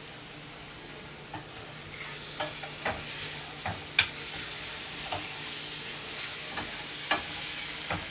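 Mushrooms sizzling as they sauté in a frying pan, stirred with a spoon. The sizzle picks up about two seconds in, and the spoon knocks and scrapes against the pan every second or so, the sharpest knock about halfway through.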